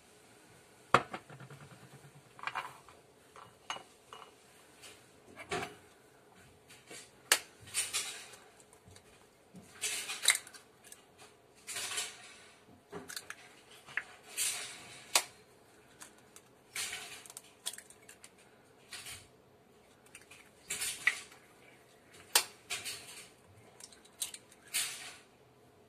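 Raw eggs tapped against the rim of a ceramic bowl and their shells cracked and pulled apart, with clinks of a fork on the bowl: a string of irregular sharp knocks and short crackles, the loudest knock about a second in.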